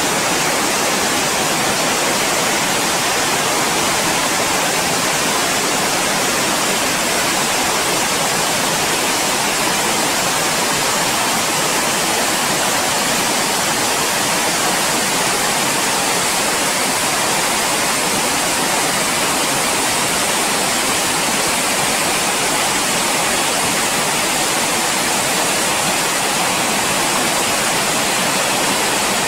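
Glacier-fed river rushing through white-water rapids over boulders: a loud, steady rush of water.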